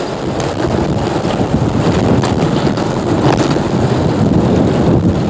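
Wind rushing over a microphone on a moving bicycle: a loud, steady low rush with a few faint clicks from the bike.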